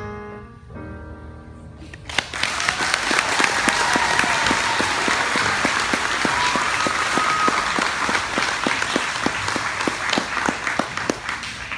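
A keyboard's last held chord dies away, then about two seconds in an audience breaks into steady applause, with a few cheers.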